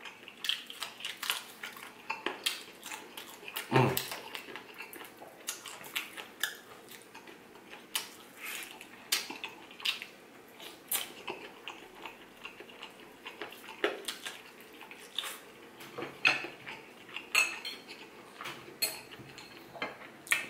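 Close-up eating sounds: fried chicken pulled apart and chewed, with irregular sharp clicks and clinks of a fork against a plate. A short, low, falling sound comes about four seconds in.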